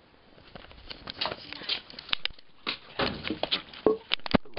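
A quick, irregular run of clicks, knocks and scuffs as someone goes out through a door and steps onto a tiled patio, with a few sharp knocks about four seconds in.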